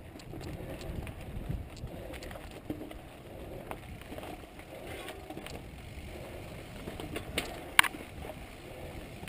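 Mountain bike ridden slowly up a dirt singletrack: a steady rumble of tyres on dirt with small rattles and clicks from the bike, and one sharp knock about eight seconds in.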